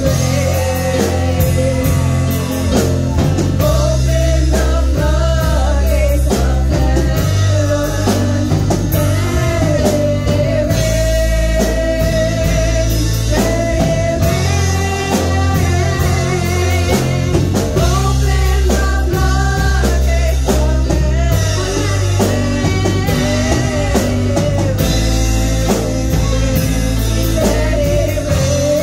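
Women singing a worship song into microphones over a live band of electric guitar, keyboard and drum kit.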